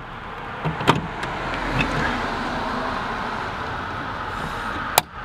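Plastic push-in clips of a Volvo XC70 tailgate trim panel clicking as the panel is pried loose by hand: a click about a second in and a sharper snap near the end, over a steady background hiss.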